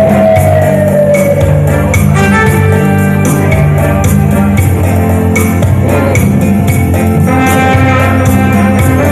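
Live music from a duo on guitar and keyboard, played over a steady beat and bass line.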